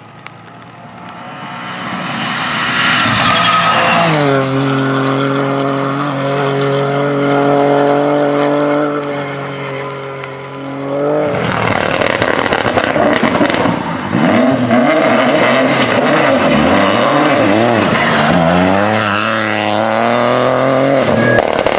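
Rally car engines at speed. A Ford Fiesta rally car comes on with its revs climbing, drops sharply in pitch about four seconds in, and runs on at steady revs as it goes away. After an abrupt change about eleven seconds in, a second rally car, a Peugeot 208, revs hard up and down through quick gear changes.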